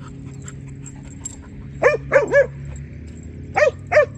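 A dog barking: three quick, short barks about two seconds in, then two more near the end.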